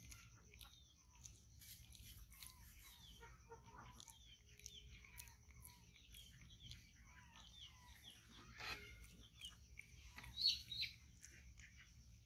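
Faint birds chirping and peeping in short, mostly falling calls, over a steady high-pitched hum. A louder cluster of chirps comes about ten and a half seconds in.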